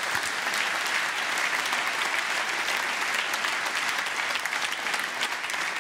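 A large theatre audience clapping steadily, a dense patter of many hands applauding a stand-up comedian's punchline.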